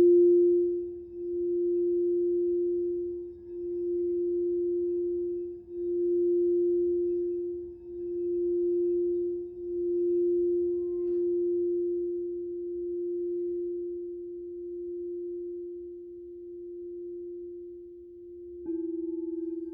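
Crystal singing bowl sounding one sustained low tone that swells and fades in slow waves about every two seconds, gradually dying down. A light tap sounds about halfway through, and near the end a strike adds a second, higher ringing tone.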